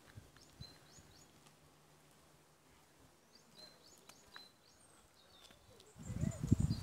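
Small birds chirping in repeated short, high phrases over a quiet outdoor background. About six seconds in, a louder low rumble cuts in.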